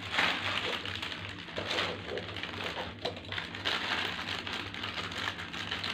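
Plastic snack-packet wrapping crinkling and rustling as a strip of packets is handled and opened, over a faint steady low hum.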